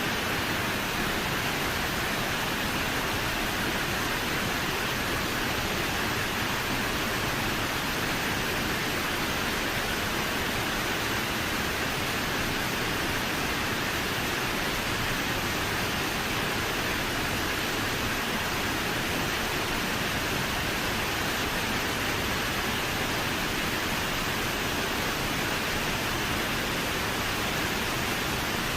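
Fukuroda Falls, a large waterfall partly frozen into an ice fall, making a steady, even rush of falling water.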